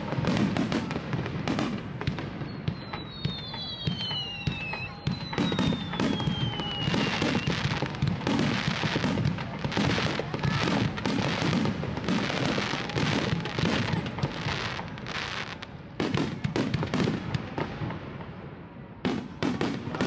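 Fireworks display: aerial shells bursting in rapid succession with a low rumble and crackle, and several falling whistles about three seconds in. The bursts thin out briefly near the end, then a fresh flurry starts.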